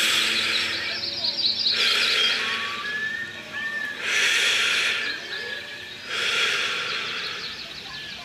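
Breathy hissing bursts about every two seconds, like heavy breathing close to the microphone, with birds chirping and whistling faintly between them.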